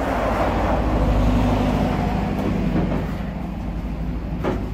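A motor vehicle driving past: low engine rumble and road noise that swell to a peak about a second in and then slowly fade. A single knock comes near the end.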